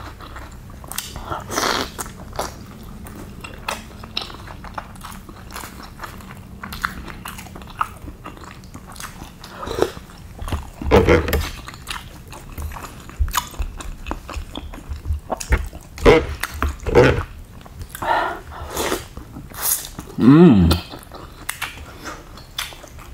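Close-miked eating sounds: biting and chewing bakso meatballs, with scattered clicks of metal chopsticks and spoon against the bowl. Louder slurping and mouth noises come in the second half, including a short hum-like vocal sound near the end.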